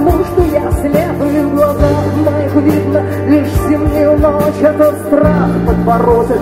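Live rock band playing: a woman singing over acoustic guitar, with held bass notes that change a few times and regular percussive hits.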